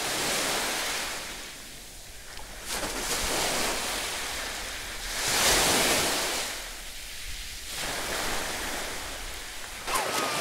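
Small waves washing on a sandy shore, the surf noise swelling and easing every two to three seconds, loudest about halfway through.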